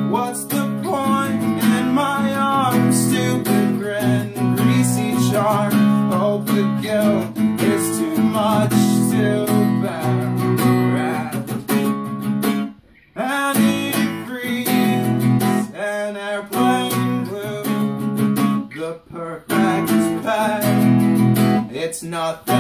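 Small-bodied acoustic guitar with a slotted headstock being strummed and picked, with short breaks in the playing about thirteen and nineteen seconds in.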